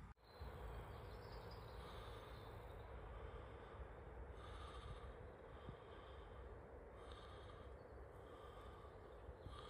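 Near silence: faint background hiss, with a soft sound recurring about every two and a half seconds.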